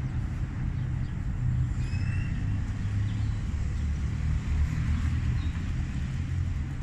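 A low, steady outdoor rumble of street background noise, with a couple of faint short high chirps about two seconds in.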